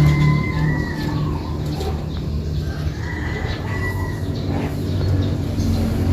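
A rooster crowing twice, each crow about a second long, over a steady low rumble like an engine.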